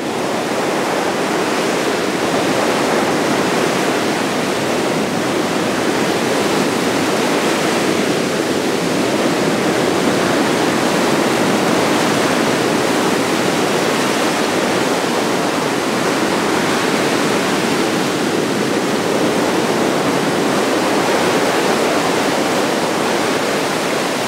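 Large ocean waves breaking: a steady rushing roar of heavy surf and white water.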